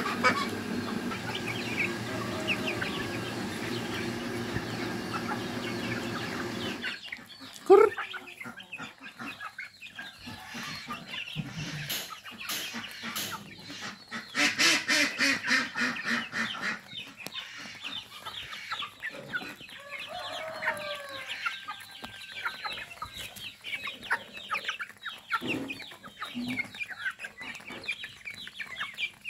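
Young chickens clucking while they feed on scattered rice, with quick pecking taps of beaks on a concrete floor. A steady background noise runs under the first several seconds and stops suddenly about seven seconds in.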